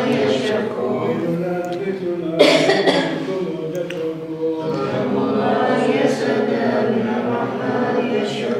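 A group of voices reciting Arabic prayers together in a chanting tone, with a cough about two and a half seconds in.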